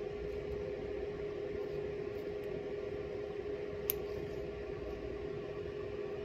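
One sharp snip of a metal nail clipper cutting through a toenail about four seconds in, over a steady background hum with a constant tone.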